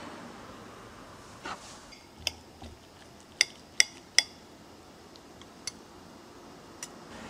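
Metal knife and fork clinking against a ceramic plate while cutting into a hamburg steak. The sharp clinks are scattered, with three in quick succession about three and a half to four seconds in, and those are the loudest.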